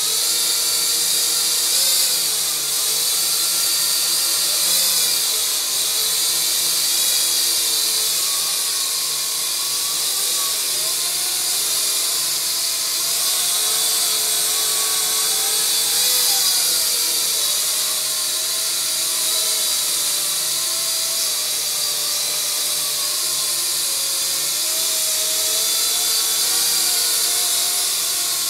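Small AVATAR YD-711 (AT-99) toy quadcopter's four electric motors and propellers whining steadily, the pitch wavering up and down as the throttle changes. The quadcopter stays on the floor without lifting off.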